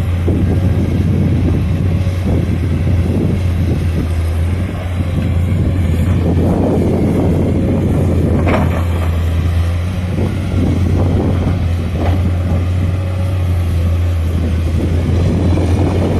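Diesel engine of a Komatsu PC210 excavator running steadily with a low hum. There is one short sharp sound about halfway through.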